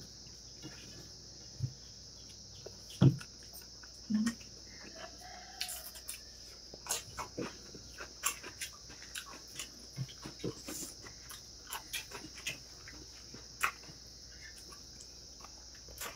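Close-up eating sounds of a man eating biryani with his hand: chewing and lip smacking, with scattered clicks of fingers working rice on a steel plate. A steady high hiss runs underneath.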